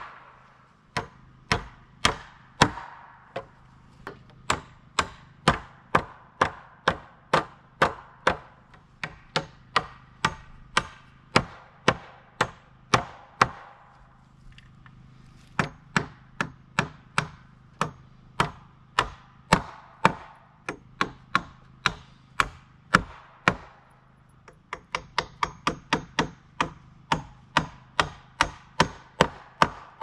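A hammer driving inch-and-a-half hot-dip galvanized nails into wooden floor joists. The sharp strikes come about two to three a second in runs, with short pauses between nails and a quicker flurry of strikes about two-thirds of the way through.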